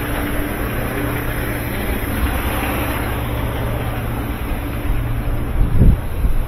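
Garbage truck engine running steadily with a low hum, and a few low thumps near the end.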